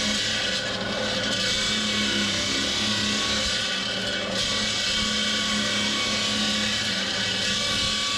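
Marble-cutting machinery running steadily, a constant machine hum with a dense hiss of stone being worked.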